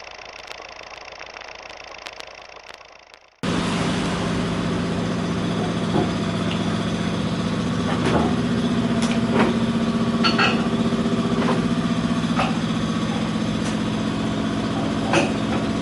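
An engine idling steadily, with scattered sharp clicks and knocks on top. It starts abruptly about three and a half seconds in, after a quieter stretch.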